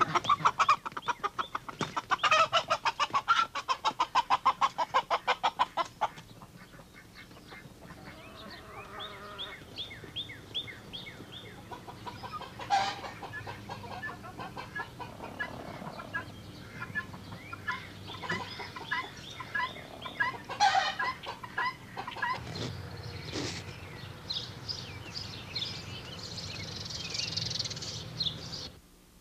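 Chickens clucking, with a fast run of rapid clucks in the first six seconds, then scattered calls.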